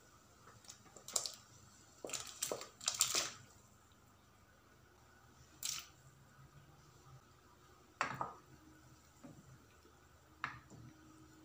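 Dried plums tipped from a plastic tub into an aluminium pot of hot water: a cluster of splashes and plops over the first few seconds. Later come three separate knocks and splashes as a wooden spoon stirs the fruit in the pot.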